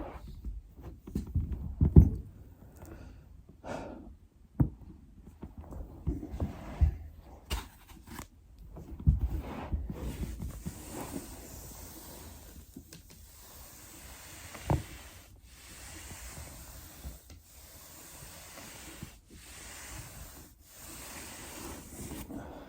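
A body shifting and rolling on a foam roller: scattered soft thumps and rustling, with a few short sharp clicks, and breathing in the second half.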